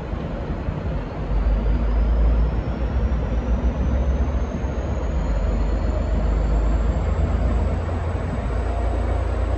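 V/Line N class diesel-electric locomotive (EMD 645 V12 two-stroke) pulling away under power: a deep engine rumble that swells about a second in and holds, with a thin high whine climbing steadily in pitch as the train gathers speed.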